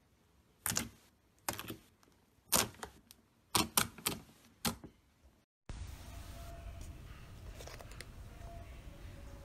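Fingertips poking into soft pale blue slime, trapped air popping out in a series of sharp, crisp pops. A little over halfway through the pops stop, and a steady hiss with a low hum takes over, with only faint handling sounds.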